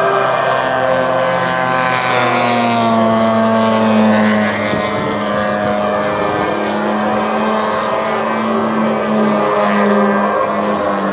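Two-stroke twin-cylinder gasoline engine (DLE-111) of a large radio-controlled Yak-54 aerobatic plane running hard, its pitch shifting with throttle and manoeuvres, sliding down about two seconds in and then holding steadier.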